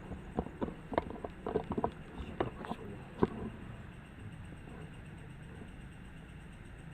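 Footsteps on a rubble-strewn floor: a few seconds of irregular scuffs and knocks, one sharper knock among them, then they stop and only a steady faint hiss is left.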